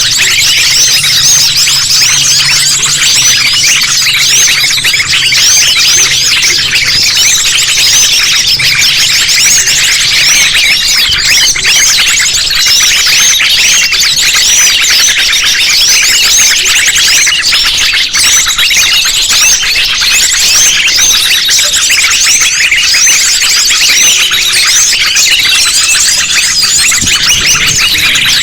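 Loud, dense, non-stop chirping and twittering of many small birds at once: a layered lure recording of small birds, sunbirds among them, played to draw wild birds in for trapping.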